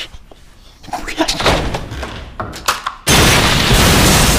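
A few knocks and thuds, then a bomb explosion bursts in suddenly about three seconds in, very loud, a dense wall of noise that holds at full level.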